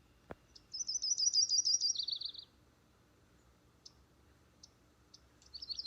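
Songbird singing: a fast, high trill that drops into a lower, shorter trill, then a few single chip notes, and a second trill beginning near the end.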